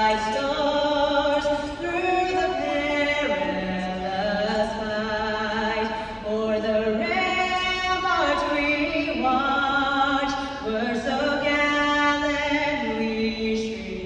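Voices singing a slow a cappella melody, each note held a second or more with vibrato.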